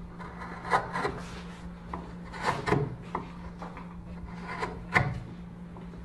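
Irregular scraping strokes of a tool working wood, a few of them louder, over a steady low hum.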